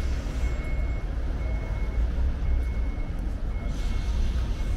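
Road traffic on a busy street: a steady low rumble of engines from passing vehicles, with a faint high tone sounding on and off.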